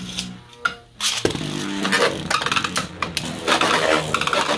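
Beyblade spinning tops whirring on the plastic floor of a Beyblade stadium. About a second in, a second top is launched in with a loud burst of noise, and the two tops spin together, rattling and clicking against the floor and each other.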